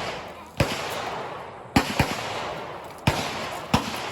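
Gunshots from firearms on a shooting range: five shots at uneven intervals, each followed by a long echoing decay.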